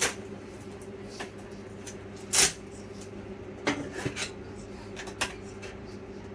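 Scattered light clicks and short scrapes of stickers being peeled off a laptop motherboard by hand, the longest scrape about two and a half seconds in, over a steady low hum.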